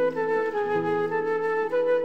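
Background music: a slow melody of held notes over a lower sustained accompaniment, with the melody note changing about every half second to a second.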